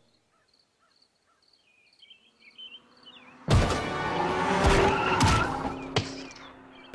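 Cartoon soundtrack: near silence, then faint bird chirps, then about halfway through a loud music cue cuts in with several sharp hits.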